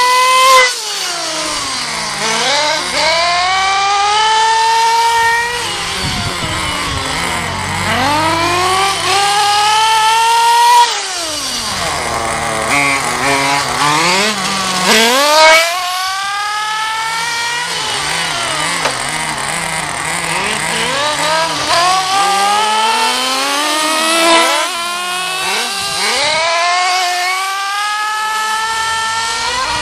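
Small nitro engine of an RC buggy revving high, its pitch climbing again and again as it accelerates and then falling away as it lets off. At times a second engine pitch overlaps it.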